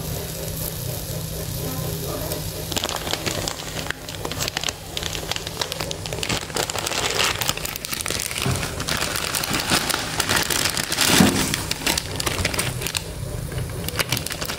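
Plastic instant-noodle packet crinkling and rustling as it is handled. The crinkling starts about three seconds in and stops shortly before the end.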